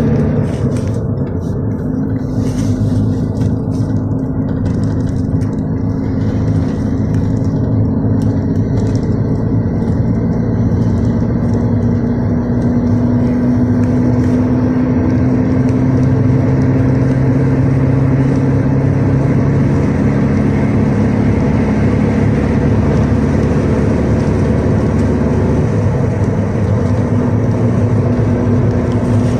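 Cabin noise inside a GAZ-322133 (Luidor-225000) minibus under way: its UMZ-4216 four-cylinder engine drones steadily over road noise. The engine's pitch climbs a little about a third of the way through, then holds.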